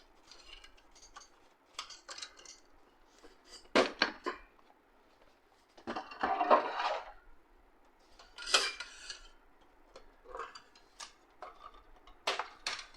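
Plastic printer housing and scanner parts being handled: scattered knocks, clicks and clatter as the scanner unit of an HP LaserJet M1005 MFP is separated and lifted off. There is a longer rattling stretch around the middle.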